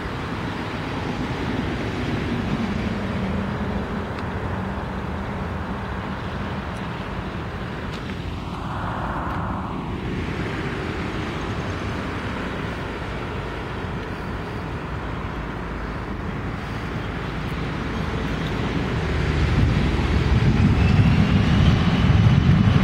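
Jet airliner on final approach: a steady engine rumble that grows louder over the last few seconds, with a faint high engine whine coming in near the end.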